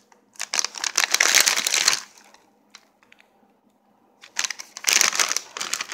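Plastic mesh-and-film bag of mandarin oranges crinkling as it is handled, in two bouts with a near-silent pause of about two seconds between them.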